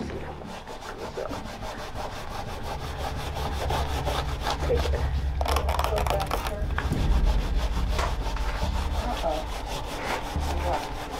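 A paper towel being scrubbed hard over a painted wooden windowsill in quick, repeated back-and-forth strokes, rubbing off dried stains.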